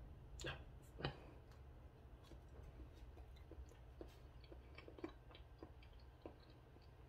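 Faint mouth and handling sounds of someone eating a banana: small, scattered clicks of chewing and handling the peel, with two sharper clicks about half a second and a second in, over a low steady hum.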